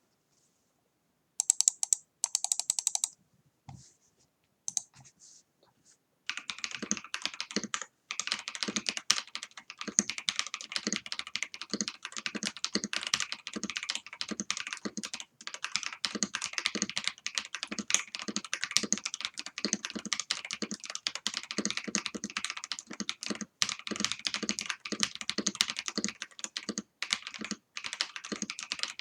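Custom mechanical keyboard (Rama Kara case, lubed Raed switches, Gentleman keycaps, tape-modded PCB) being typed on. There are a couple of short bursts of clicks near the start and a few stray keystrokes, then fast continuous typing from about six seconds in.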